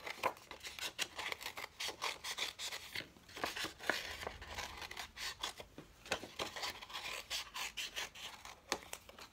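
Small scissors snipping through stiff paper in a quick, irregular run of short cuts, working around a round eye hole.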